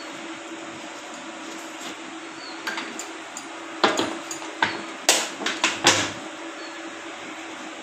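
A quick run of sharp knocks and taps, about eight over three seconds starting near the middle, as a Royal Enfield Bullet's metal fuel tank and a plastic bottle are handled against each other, over a steady background hum.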